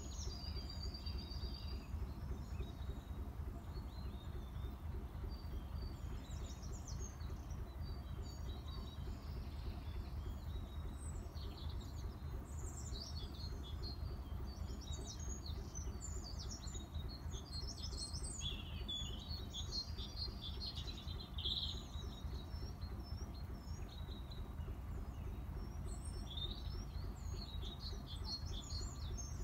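Small songbirds chirping and trilling in short, scattered phrases, busiest in the second half, over a low steady rumble.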